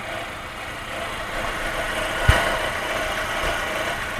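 Fiat car engine idling warm, with the odd noise from the timing belt area that appeared after a belt change, which the owner takes for something touching and rubbing. A single sharp knock about two seconds in.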